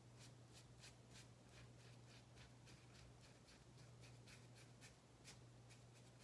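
Faint, quick strokes of a small paintbrush dabbing paint onto a football cleat, several strokes a second, over a steady low hum.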